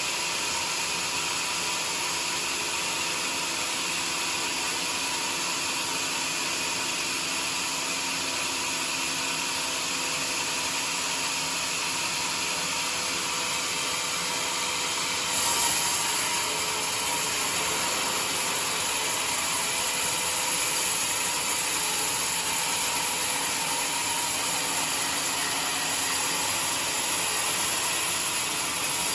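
Homemade sawmill running steadily; about halfway through the sound gets louder and harsher and stays that way.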